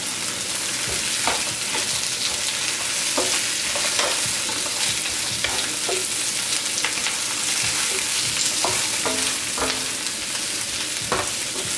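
Baby bok choy stir-frying in a hot nonstick wok: a steady sizzle, with a wooden spatula scraping and knocking against the pan now and then as the greens are turned.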